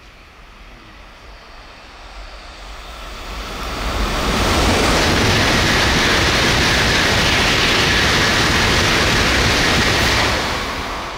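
N700A Shinkansen passing at about 275 km/h, a loud rush of air and wheels on rail. It builds over about four seconds, holds steady for about six, then falls away quickly near the end.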